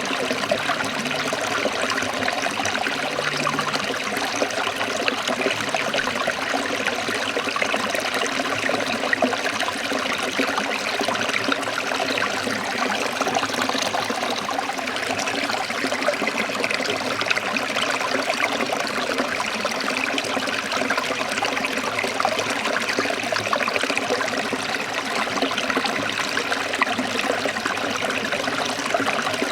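Forest stream trickling and splashing steadily.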